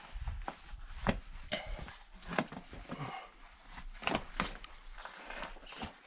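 Irregular footsteps and scuffs of shoes on rock as someone clambers over boulders, a sharp click or knock every half second or so.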